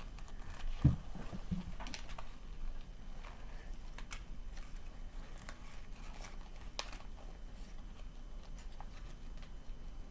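Small plastic toy miniatures being handled and moved about while searching: scattered faint clicks and taps, with one dull thump about a second in.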